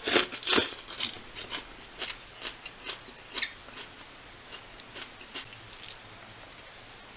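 A person chewing a mouthful of shredded raw cabbage and green pepper salad: two loud crunches in the first second, then lighter crunches about every half second that die away near the end.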